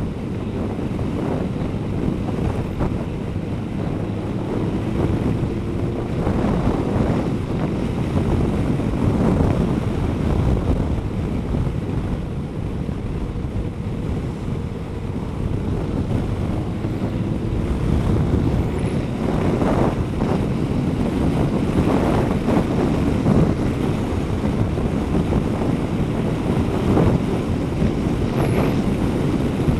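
Wind buffeting the microphone of a camera on a moving motorcycle, a steady low rush, with the Kawasaki ZZR1200's inline-four engine and tyre noise underneath, its pitch drifting slowly up and down.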